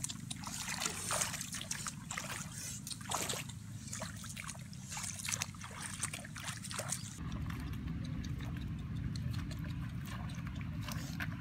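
Shallow pond water splashing and sloshing in irregular bursts as a person wades through it barefoot. About seven seconds in the sound changes to a steady low rumble with fainter splashes.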